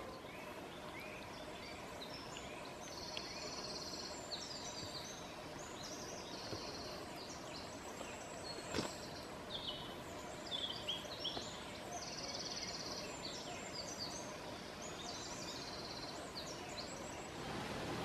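Songbirds singing in woodland: repeated high trills of about a second each and many short chirps over a steady background hiss, with a single sharp click about nine seconds in.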